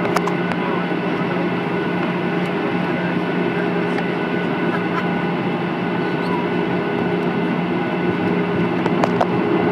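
Boeing 737 jet engines heard from inside the cabin over the wing while the aircraft moves on the ground: a steady hum with a low held tone, and a few light clicks near the start and again near the end.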